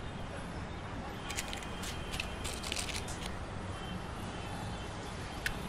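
Steady outdoor background hum of distant traffic, with a few brief crackling rustles between about one and a half and three seconds in and a single click near the end.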